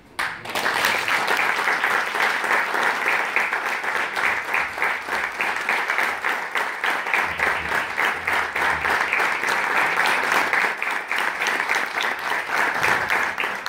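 Audience applauding: dense clapping that starts suddenly and holds steady.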